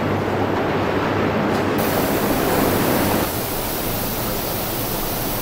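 Electric arc furnace running: a loud, steady roar with a low hum under it. Just after halfway through, it drops a little in level and turns thinner.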